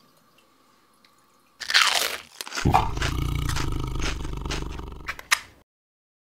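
Commercial logo-sting sound effects: a loud whoosh falling in pitch, then a heavy low rumble with crackling crunches that cuts off suddenly, leaving silence.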